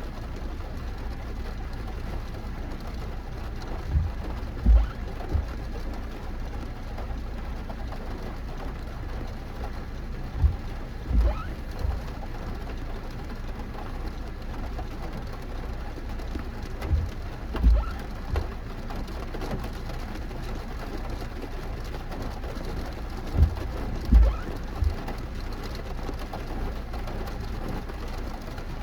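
Steady rain noise, with short low thuds in groups of three that come back about every six to seven seconds.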